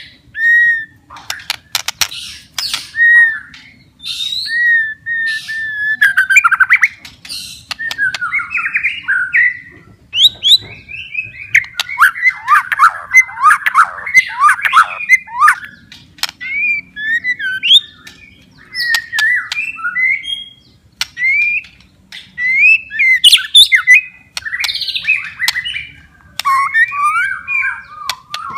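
White-rumped shama singing vigorously (gacor): a long, varied run of clear repeated whistles, fast trills and sharp clicking notes, with short pauses between phrases and a dense stretch of warbling in the middle.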